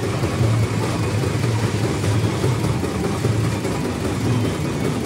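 Steady, low, engine-like mechanical rumble without a break.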